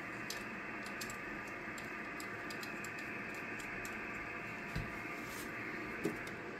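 Light clicks and taps of cables and microphone connectors being handled at a ham radio transceiver, with two soft knocks near the end, over a steady hiss.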